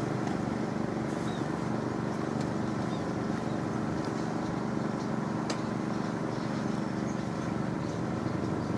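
A small engine running steadily at a constant speed, with one light click about five and a half seconds in.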